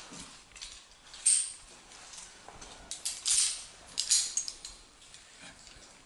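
Footsteps crunching on stony ground: a few irregular, uneven steps about a second apart.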